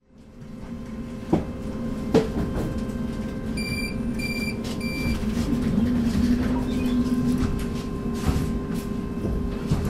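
Duewag/Kiepe B80D Stadtbahn light-rail car standing at a stop, its equipment humming steadily. Two clunks come early, then three short high beeps about four seconds in: the door-closing warning.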